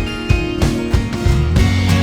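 Background music: an upbeat track with guitar and a steady drum beat.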